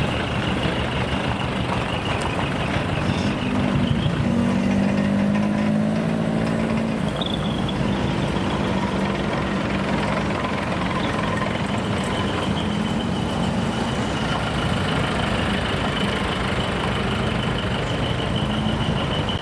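Decorated light-duty trucks driving slowly past one after another, engines and exhaust running with a steady low drone that grows stronger a few seconds in. A thin high tone runs steadily above it.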